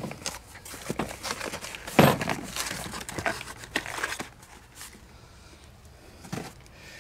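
Hands fiddling with a metal hose clamp and small parts: a scattered run of clicks and knocks mixed with plastic crinkling, loudest about two seconds in, then mostly quiet with one more knock near the end.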